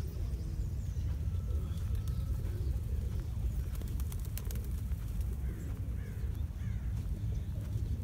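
Faint calls from a flock of feral pigeons, with a few short chirps in the second half, under a steady low rumble.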